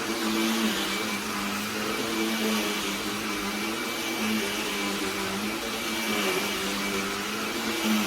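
BLACK+DECKER Dustbuster cordless handheld vacuum running continuously, a steady motor hum and airflow hiss whose pitch wavers slightly.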